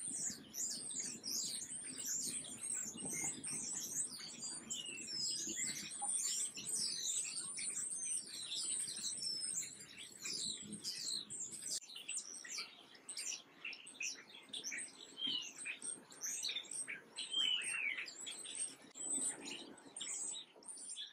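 Small songbirds chirping and twittering, many quick high chirps overlapping in a dense, busy chorus.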